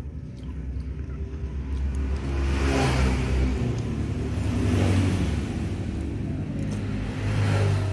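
Motor vehicles running past close by, their engine noise swelling and fading three times: about three seconds in, around five seconds, and near the end, over a steady low engine hum.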